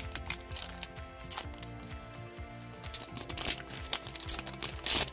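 Foil wrapper of a One Piece Card Game booster pack being torn open and crinkled by hand, the crackling busiest in the last two seconds, over steady background music.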